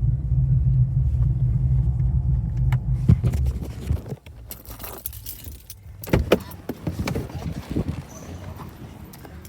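Holden VF Commodore SSV Redline's 6.0-litre V8 idling with a steady low exhaust rumble. About four seconds in the rumble drops away sharply, leaving scattered clicks and rattles like keys or handling noise.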